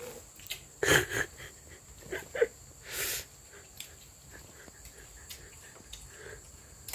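Cats in a squabble: a few short yowls, loudest about a second in, and a hiss about three seconds in, then only faint sounds.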